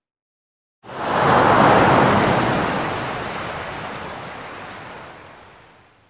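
One wave of surf breaking and washing up the shore. It starts abruptly about a second in, is strongest over the next second, then slowly fades away over about four seconds.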